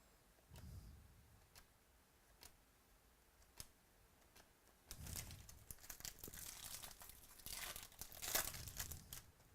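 A few faint clicks, then a foil trading-card pack torn open and its wrapper crinkled, the crackling loudest near the end.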